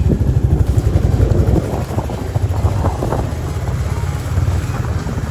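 Motorcycle running on the move, heavily mixed with wind buffeting the microphone in a dense, fluttering low rumble.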